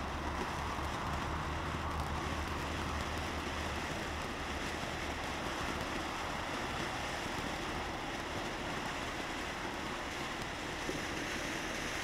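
Ground fountain firework spraying sparks: a steady, even hiss.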